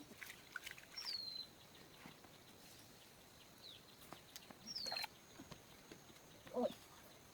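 A bird repeating a short, high call that drops in pitch, heard twice, with a few soft knocks in between.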